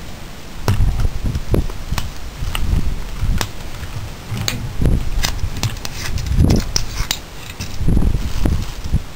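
Handling noise from an AR-15 rifle with a .22 conversion kit: a string of light metallic clicks and rattles from the rifle and its sling hardware, over low rumbling on the microphone.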